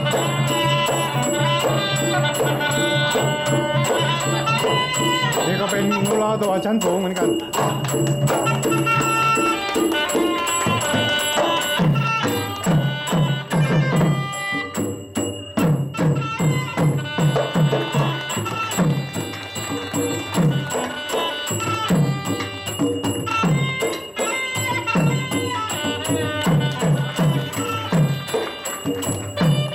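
Southern Thai Nora dance music from a traditional ensemble. Held melodic notes come first, then from about ten seconds in a fast pattern of drum strokes.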